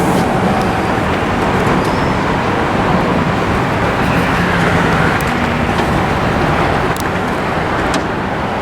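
Diesel engine of a heavy sand truck running close by: a steady, loud rumble with a wash of noise.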